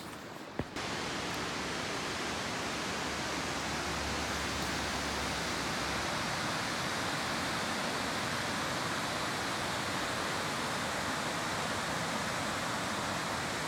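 Steady, even rush of a waterfall, coming in suddenly after a click about a second in.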